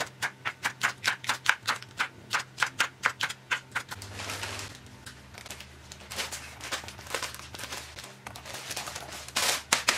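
Chef's knife chopping frozen green peppers on a wooden cutting board: a quick run of sharp knocks, about three or four a second. After about four seconds the pieces are scraped off the board, then a plastic zip-lock bag rustles and crinkles as it is filled and sealed.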